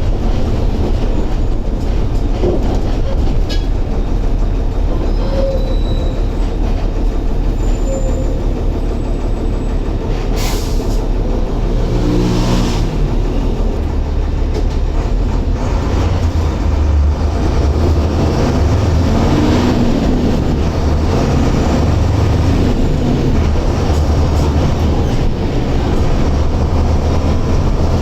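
Mercedes-Benz OF-1721 bus's front-mounted diesel engine running under way, a steady low rumble with rattling and clatter from the vehicle. A sharp clack comes about ten seconds in, and the engine note changes and grows heavier from about halfway through.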